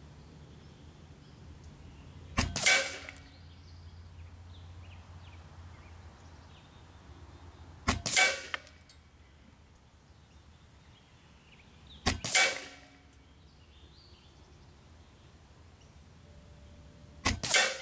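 Four shots from a Benjamin Armada semi-automatic, regulated .22 PCP air rifle, fired one at a time about four to five seconds apart. Each is a sharp report with a short tail.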